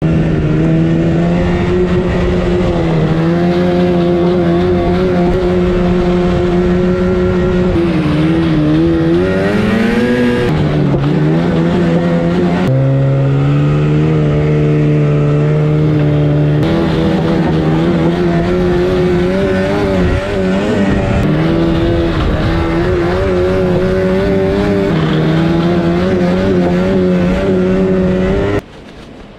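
Yamaha Phazer snowmobile's two-stroke twin with an aftermarket pipe, running at a high, steady pitch under way. The pitch rises about 8 s in, drops about 13 s in and climbs back about 17 s in. The loud engine sound stops abruptly about a second before the end.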